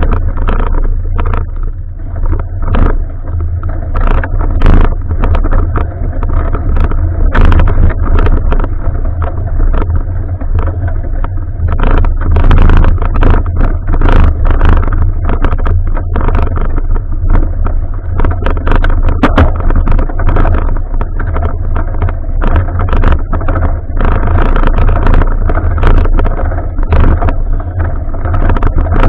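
Wind buffeting an action camera's microphone while riding: a loud, steady low rumble with frequent sharp knocks and rattles throughout.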